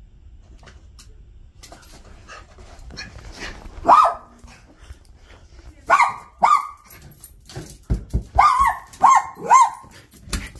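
Maltese dog barking in short, high-pitched yips: one about four seconds in, two about six seconds in, then a quick run of four. These are excited greeting barks at the door as his person comes home. A couple of low thumps come near the end.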